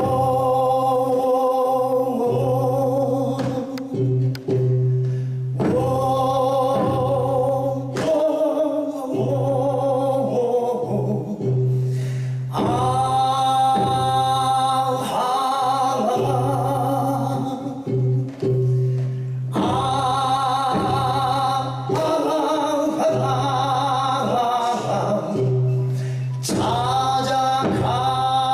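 A male vocalist sings long held phrases with a wavering vibrato over instrumental accompaniment. A steady low note is sustained underneath, and the phrases break every few seconds.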